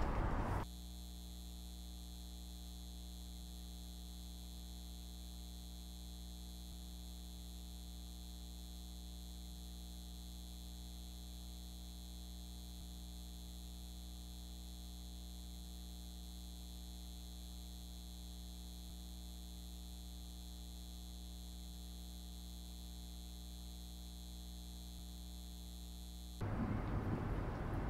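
Steady electrical mains hum with a buzz of overtones, unchanging throughout. It cuts off suddenly near the end, where outdoor street sound takes over.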